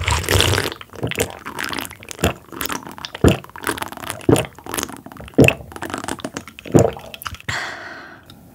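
Close-miked eating and tabletop handling sounds: a run of sharp clicks and soft knocks, several louder ones about a second apart, with a short hiss near the end.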